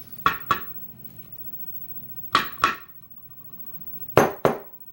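Small metal lock parts clinking: three pairs of sharp taps about two seconds apart, as the pins and springs are worked out of a gutted 6-pin Yale lock.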